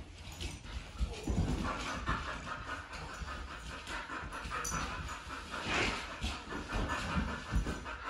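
A dog panting rapidly and steadily, with a few soft knocks from movement on the wooden floor.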